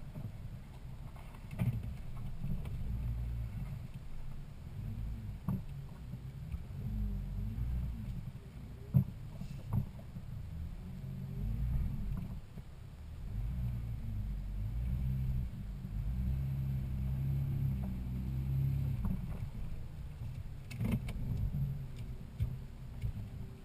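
Toyota Land Cruiser 80-series driving a rough off-road trail: low engine and drivetrain rumble that rises and falls, with scattered knocks and clunks from the bumps, the sharpest about nine seconds in.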